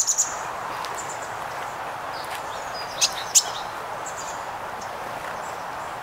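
Songbirds giving short, high chirps: a quick run of chirps at the start and two sharp chip notes about three seconds in, over a steady background rush.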